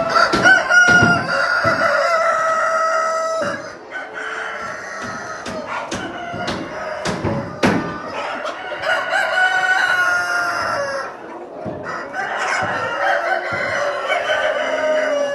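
A flock of young Kuroiler chickens: cockerels crowing in three long, drawn-out calls, with clucking and a few sharp clicks in between.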